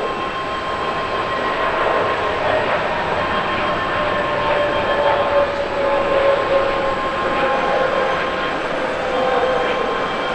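Airbus A321neo's twin turbofan engines at takeoff power as the airliner lifts off and climbs away: a steady jet roar with high whining tones, one of them slowly falling in pitch through the second half.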